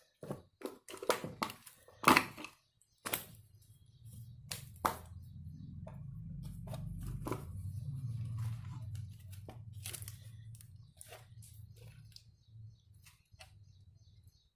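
Hands handling small plastic speedometer parts: sharp clicks and knocks, loudest in the first few seconds and scattered after, over a low steady hum that starts about three seconds in and fades toward the end.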